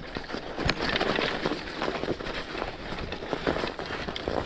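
Commuter bike riding a snowy forest trail: tyres crunching and hissing over packed snow, with frequent clicks and knocks as the bike jolts over bumps, one heavy knock just under a second in.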